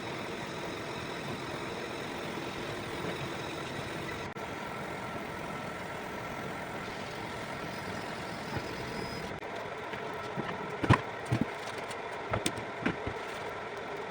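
Fiber laser marking machine running with a steady hum, faint steady tones over it. Several sharp knocks come near the end.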